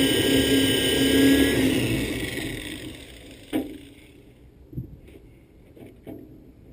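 Electric drill running steadily as it bores into the steel door regulator, then let off about two seconds in and winding down. A sharp click follows, and a light knock a second later.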